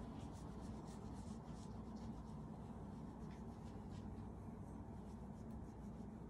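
A hand rubbing a Shiba Inu's belly fur, making a faint, irregular scratchy brushing, over a steady low hum.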